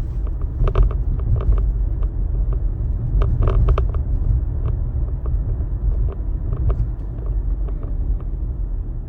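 Road and tyre rumble inside a moving Tesla's cabin, low and steady, with scattered light clicks and knocks, in two small clusters about a second in and about three and a half seconds in.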